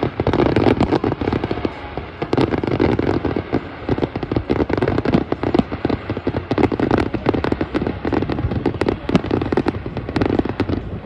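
Aerial fireworks shells bursting in quick succession: a steady run of sharp bangs and crackling stars, several a second.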